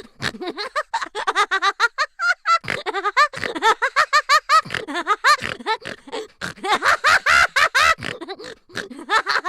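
Cartoon-style laughter sound effects from Final Cut Pro X's built-in library: rapid high-pitched giggling and chuckling syllables, several a second, with brief breaks between clips.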